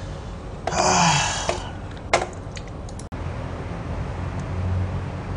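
A man lets out a loud, breathy sigh with a falling voice. About two seconds in comes a single sharp click, then a few faint clicks, and a low hum builds near the end.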